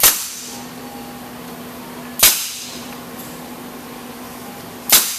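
Pneumatic finish nailer driving small nails into a thin plywood boat side, three sharp shots about two and a half seconds apart.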